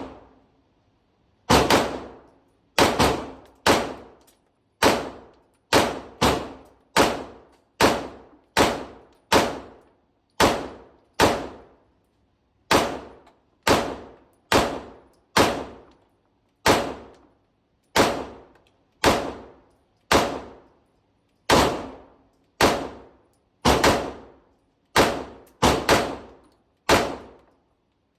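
Compensated Glock 26 9mm pistol fired shot after shot at a slow, steady pace, about one to two shots a second, each crack followed by a short ring.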